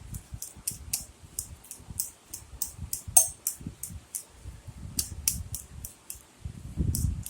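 Boiled potatoes being mashed in a bowl: repeated light clicks with soft low thumps as they are pressed down, a few thumps heavier near the end.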